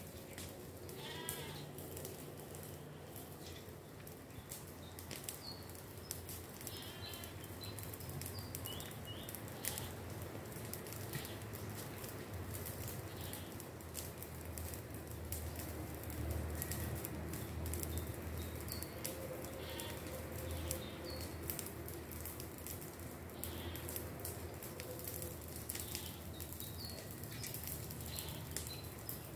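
Farm animals bleating off and on over a steady low outdoor background, with scattered short high chirps.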